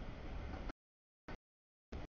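Freight train cars rolling past over the rails, a low, rough noise heard in choppy fragments: about a second of sound at the start, then two short blips, with dead silence between them from audio dropouts.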